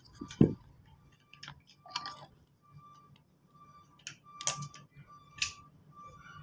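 Irregular clicks and light knocks of small parts and tools being handled, one sharper knock about half a second in.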